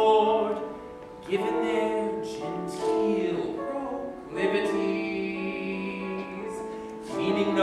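A man singing long held notes in a theatrical, operatic style over instrumental accompaniment, in a live musical-theatre performance.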